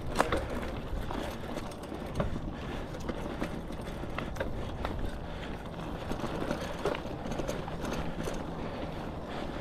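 Bicycle rolling along a dirt trail: steady rolling noise from the tyres and bike, with scattered clicks and knocks as it rattles over bumps.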